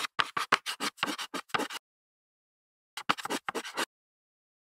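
Edited-in scratchy writing sound effect of quick, separate strokes in two runs: about ten over the first two seconds, then, after a silent gap, about eight faster ones around three seconds in.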